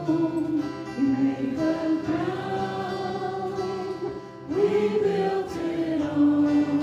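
Voices singing a hymn in long held notes, with instrumental accompaniment.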